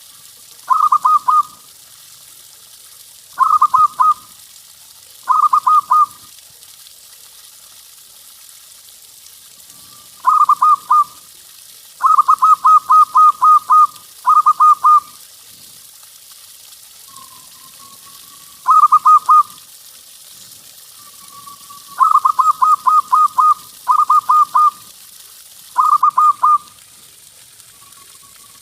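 Zebra dove (perkutut) cooing: bursts of quick, pulsing notes, from about three up to eight in a row, repeated with short pauses between.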